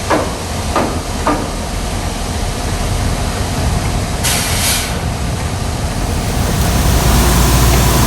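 Engine-room noise as a Mitsui MAN B&W 6S42MC two-stroke marine diesel main engine is started from its local control stand: a steady loud rumble, three short falling squeals in the first second and a half, a brief hiss of air about four seconds in, then a deeper rumble building near the end.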